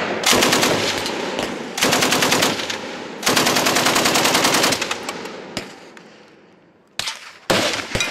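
Degtyaryov DP light machine gun, pan-fed, firing three bursts of automatic fire, the last and longest about a second and a half. Two sharp cracks follow near the end.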